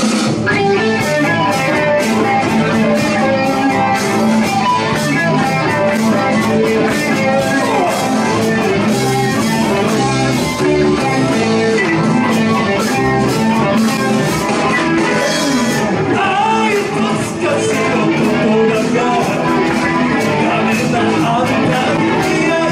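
Live rock band playing a Japanese rock kayō cover, with electric guitar over bass and drums; the full band comes in right at the start and plays on steadily.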